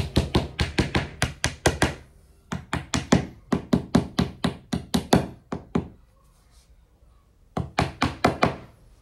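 Small hammer tapping wooden dowels into the pre-drilled holes of a particleboard cabinet panel: quick light blows at about five a second, in three runs broken by short pauses about two seconds in and again around six seconds in.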